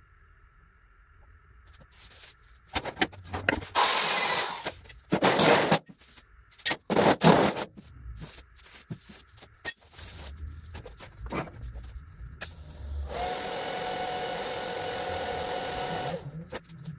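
Workshop noise: several loud, rasping bursts in the first half, then a small power tool whirring steadily for about three seconds near the end.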